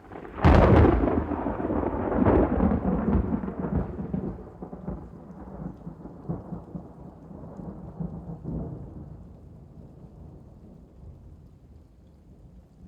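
A loud thunderclap: a sharp crack about half a second in, then a long rumble broken by further crackles that slowly fades away.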